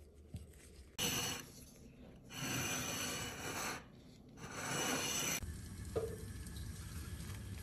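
Three spells of rough rubbing and scraping noise, then, from about five and a half seconds in, a pot of water boiling steadily with an even hiss of bubbling.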